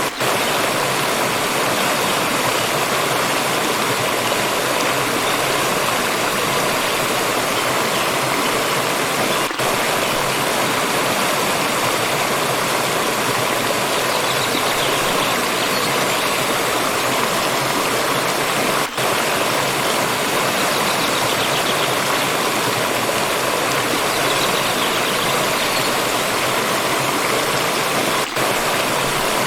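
Water from a stream rushing and splashing in a steady, dense wash. The level dips briefly about every nine seconds.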